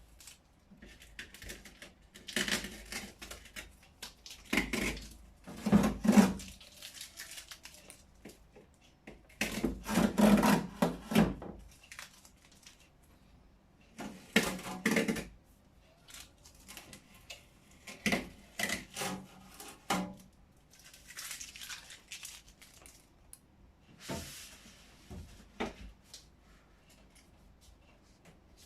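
Packing material being pulled off a new refrigerator and handled, in irregular spells of noise that are loudest about six and ten seconds in.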